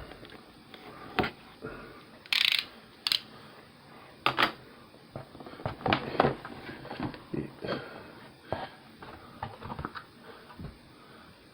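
Board game packaging and pieces being handled: irregular clicks, taps and short crinkly rustles of cardboard and plastic as the box is unpacked.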